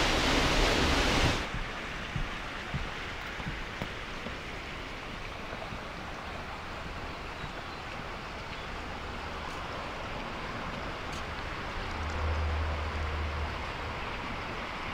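A loud, steady rushing noise cuts off sharply about a second and a half in. A quieter, even outdoor background hiss follows, with a few faint clicks.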